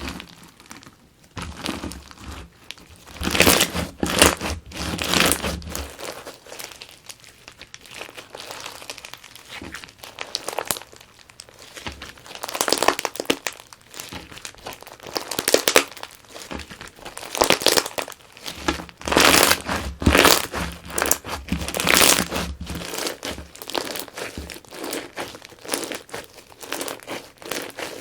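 Crunchy slime packed with Perler beads being squeezed and pressed by hand, giving dense crackling crunches with louder surges every second or two.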